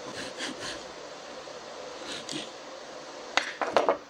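Junior hacksaw cutting through a wooden lure body held in a vise: a few short rasping strokes, then a quick cluster of sharp cracks and clicks near the end, the loudest sounds, as the cut breaks through and the piece comes free.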